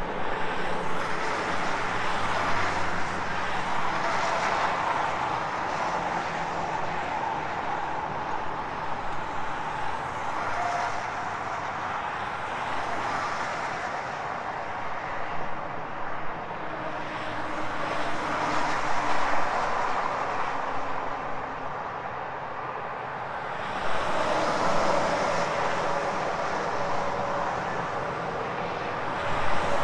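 Highway traffic of cars and trucks passing: a continuous rush of tyre and engine noise that swells as each vehicle goes by and eases between them, several times.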